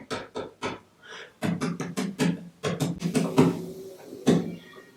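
A man's voice making a quick series of short, breathy "p" plosives, the unvoiced partner of "b", pushed out as puffs of air in rapid runs of about four or five a second.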